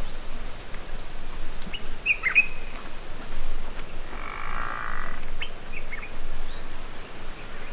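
Wild bush ambience: a few short bird chirps and, about four seconds in, a rasping, croak-like call lasting about a second, over a steady hiss.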